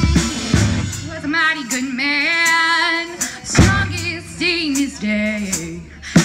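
Live rock band with a female lead singer holding long, wavering notes over a pared-down backing, with a drum hit in the middle and the full band crashing back in at the very end.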